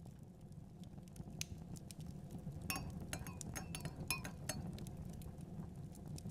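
Light taps clinking on glass, a quick cluster of sharp ringing ticks in the middle, over a low steady rumble.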